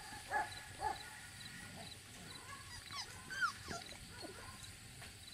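Beagle puppy yipping twice in quick succession, then a few higher, sliding whimpers about three seconds in.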